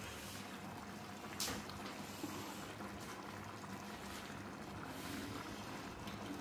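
Pot of lentil dhal simmering in tomato sauce on a gas hob while a spoon stirs it: a steady bubbling hiss, with one sharp clink about a second and a half in.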